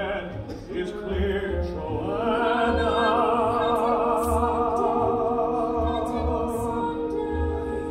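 Music from a live stage musical, heard from the audience in a theatre: a singer holds one long note with vibrato over sustained orchestral chords, after a shorter sung phrase.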